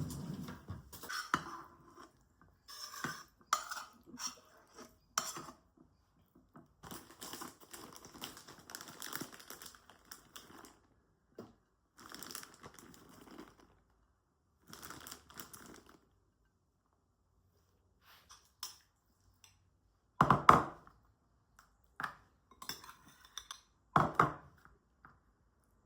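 Household items being handled: irregular clinks and knocks with stretches of crinkling and rustling, then two louder knocks near the end.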